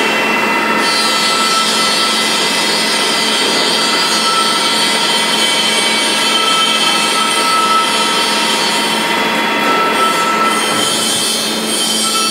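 CNC lathe cutting a metal workpiece under coolant: a steady machining noise with a constant whine over a hiss, easing off a little near the end.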